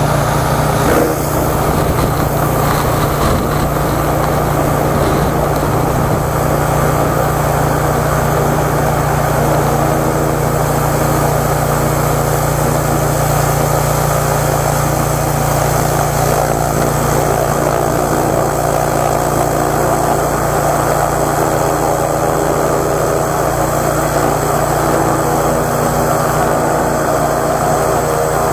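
A 13-horsepower high-pressure washer running steadily at full pressure: a constant engine drone under the hiss of water blasting from a double-barrel spray gun against a plywood board.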